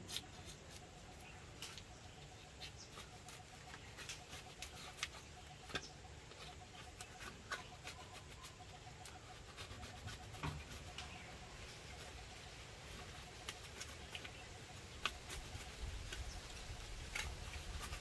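Quiet, scattered clicks and scrapes of a knife prising Ceylon cinnamon bark off a freshly cut stick, with faint bird calls in the background.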